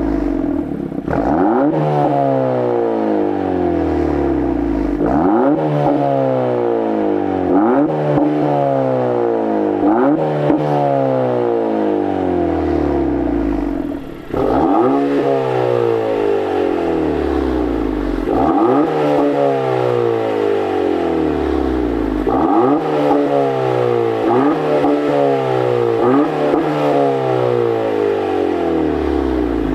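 A 1.5-litre turbo four-cylinder Honda engine, breathing through an AWE catback exhaust, is revved in about eight quick blips. Each time the revs climb sharply and then fall away slowly.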